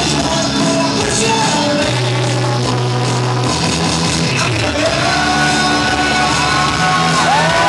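A man singing live into a microphone over loud rock music in a large hall. Near the end the audience starts to cheer and whoop.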